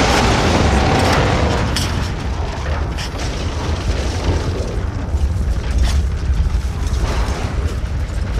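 Continuous deep rumble from the jet crash explosion, with a few sharp knocks from the camera being handled.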